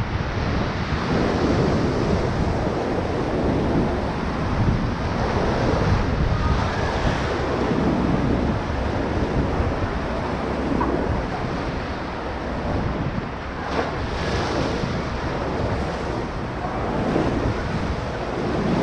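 Whitewater of a river rapid rushing and splashing around a raft, with a steady roar of moving water and wind buffeting the microphone.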